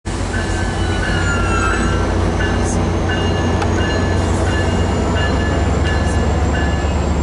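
VRE commuter train standing at the platform with its diesel running: a steady low rumble, a repeated ringing tone at two pitches, and a few short hisses of air.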